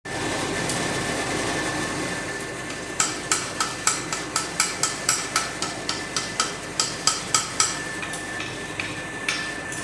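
Hammer blows on a steel rivet, peening it over to join the legs of a pair of forged blacksmith's calipers: a quick run of about eighteen sharp metallic strikes, three to four a second, starting about three seconds in and stopping near the end. Before the blows, a steady rushing noise with a faint thin whine.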